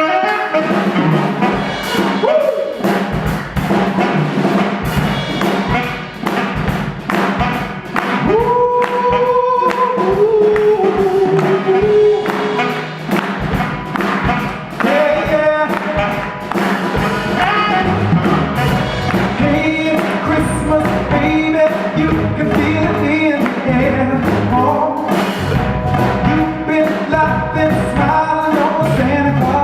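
A live band plays a Christmas song, with a steady beat and long held notes partway through.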